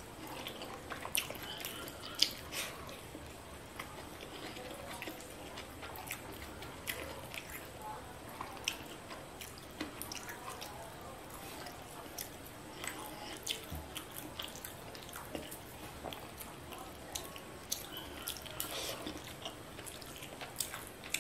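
Close-up eating sounds: chewing with scattered sharp mouth clicks, and fingers mixing rice with fish curry and picking at fried fish on a plate.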